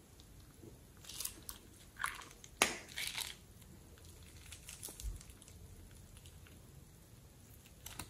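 Thin plastic piping bag crinkling and crackling in the hand as it is squeezed empty, a cluster of short crackles in the first few seconds, then only a few faint ones.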